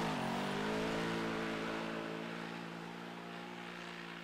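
Polaris side-by-side's engine running under steady load, its pitch dipping briefly at the start and then holding even, growing gradually fainter as the machine moves away.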